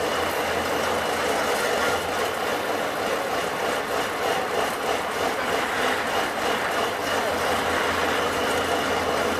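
Tatra 815 trial truck's diesel engine running steadily, with no revving, while the truck creeps along a steep side slope.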